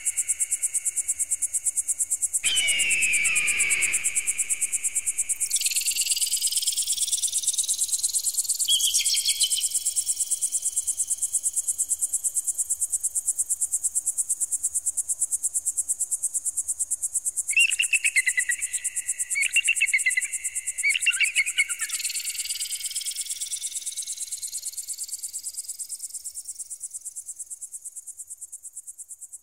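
Electronic bird-repeller sound: a continuous high-pitched, very rapidly pulsing tone, with repeated rising sweeps laid over it. About three seconds in there is a falling screech, and short chirping trills come around nine seconds and again near the twenty-second mark. The whole sound fades out near the end.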